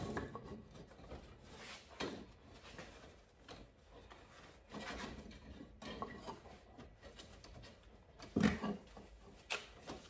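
Wooden boards being handled and set in place: a few scattered knocks and brief rustles, the loudest knock about eight and a half seconds in.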